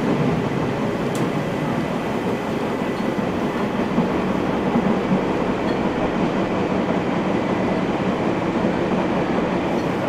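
Running noise of a Nagoya Municipal Subway 3050-series train heard from inside the car while it travels between stations: a steady rumble of wheels on rail with no let-up.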